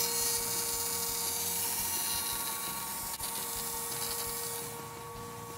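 Small electric fuel pump running with a steady whine, under a hiss that dies away near the end. It is pumping against about 2 bar, with no fuel coming from the return outlet.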